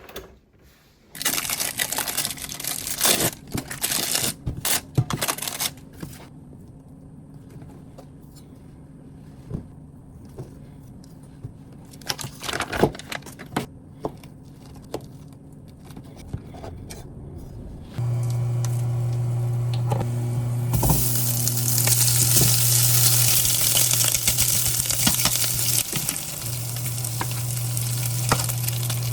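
Kitchen clatter of utensils and dishes, then a steady low hum comes on, and a few seconds later food starts sizzling in a hot pan and keeps frying loudly.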